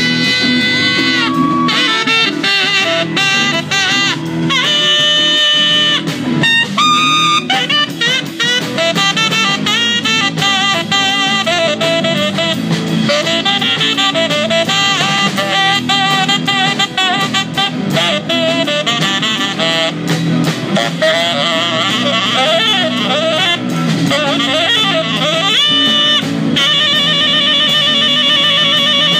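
A band playing jazz-style instrumental music, with a lead melody of held, wavering notes over drums and accompaniment.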